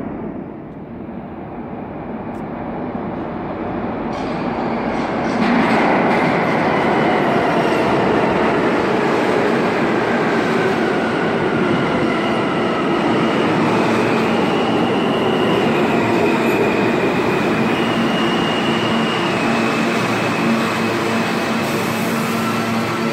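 New York City subway train on the L line pulling into an underground station. Its rumble builds over the first five seconds as it nears, then turns into a loud run of wheel clatter and squeal, with whining tones that fall in pitch as it brakes to a stop.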